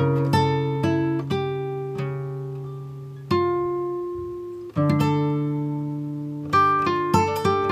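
Background music played on plucked guitar: notes and chords ring out and slowly fade. A fresh note is struck about three seconds in and again just before five seconds, and the picking gets busier near the end.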